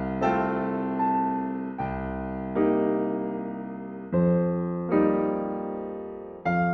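Background music: slow keyboard chords, each struck and left to fade, a new one roughly every second.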